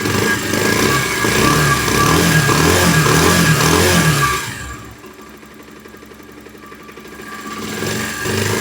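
Bajaj Pulsar 150's single-cylinder engine being revved several times, the pitch rising and falling, then settling to a quieter idle and picking up again near the end. It runs without the timing chain rattle, the cam chain taken up by a tensioner lengthened with a welded bolt.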